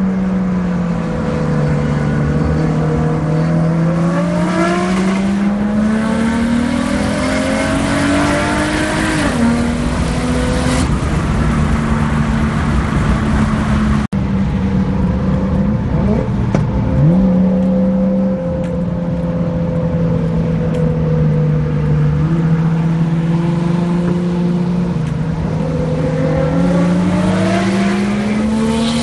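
Car engine heard from inside the cabin, accelerating with its pitch climbing slowly over several seconds, then dropping sharply at a gear change about nine seconds in. It holds a steady pitch for a while, jumps up once, and climbs again near the end. The sound cuts out for an instant near the middle.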